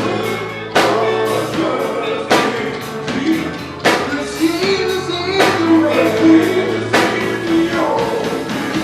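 Rock music: a voice singing over drums and guitar, with a sharp drum hit about every second and a half.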